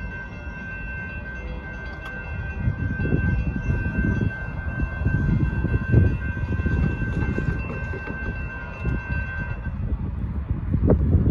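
Railroad crossing warning bell ringing steadily as the gate arms rise, cutting off suddenly about nine and a half seconds in. A car drives over the crossing, loudest about six seconds in, with low rumbling noise around it.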